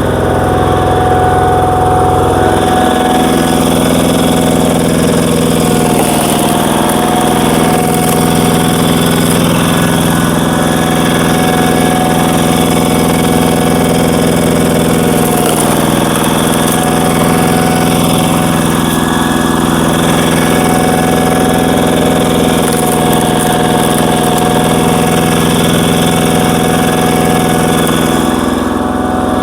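Power tiller's single-cylinder diesel engine running steadily, driving a screw-cone log splitter. A deep low rumble drops away about two and a half seconds in.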